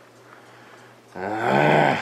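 A man's groan of strain, once, starting about a second in and lasting under a second.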